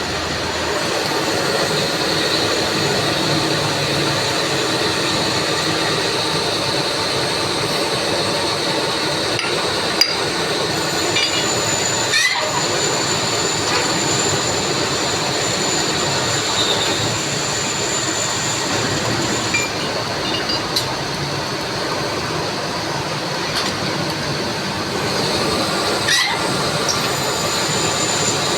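Metal lathe running while cutting a flange: a steady machining noise, with a thin high whine coming in partway and a few sharp clicks.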